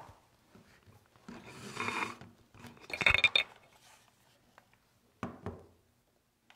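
Shuffling, then a short clatter of clinks about three seconds in, as of small hard objects like glass or dishes being handled, followed by a couple of knocks.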